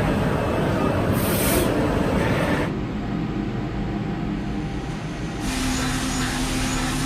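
Steady machining noise from CNC machining centres, changing abruptly at edits. About five seconds in, a steady hum sets in as a spindle mills a block under flood coolant.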